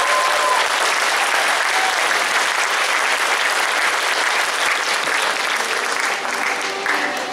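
Audience applauding, the clapping easing off a little near the end.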